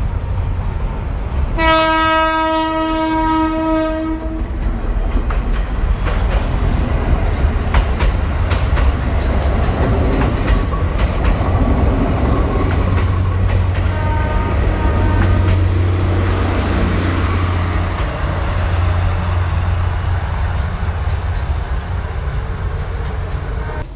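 Diesel train passing: one long horn blast in the first few seconds and a shorter, fainter blast about halfway through, over the steady low rumble of the train and the clicking of wheels over rail joints.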